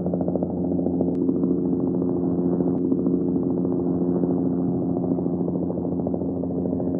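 Helicopter in flight: rapid, steady rotor-blade chop over a constant engine drone.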